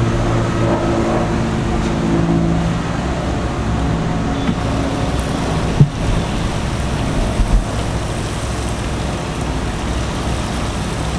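Wort recirculating on a Clawhammer Supply 120 V brew-in-a-bag system: the pump running and wort spraying from the return fitting in the lid onto the mash, a steady hiss with a low hum that fades after a couple of seconds. A sharp click about six seconds in.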